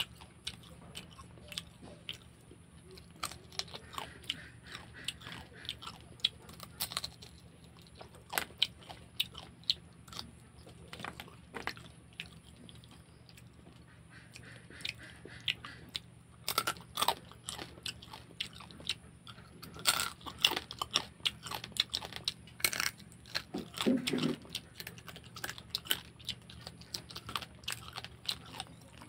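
Cooked crab being eaten by hand: shell pieces cracking and crunching with chewing, in irregular sharp clicks that come thickest in the second half.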